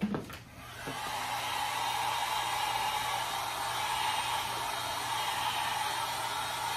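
Handheld heat gun switched on about a second in and running with a steady blowing hiss, heating a plastic racquet grommet strip to soften it.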